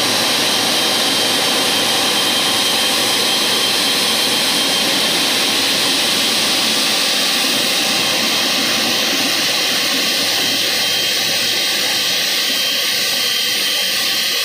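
Jet airliner's engines running: a steady rushing noise with a thin high whine, the hiss easing slightly after about halfway.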